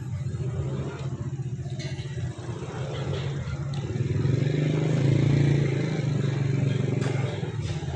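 Nearby motor vehicle engine running with a steady low hum, growing louder about halfway through and easing off near the end, over general street traffic noise.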